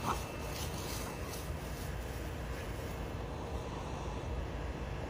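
A steady low background rumble with no distinct events.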